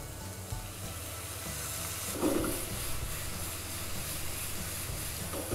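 Soy sauce sizzling as it hits a hot frying pan of sautéed vegetables, a steady hiss as it reduces, briefly louder about two seconds in.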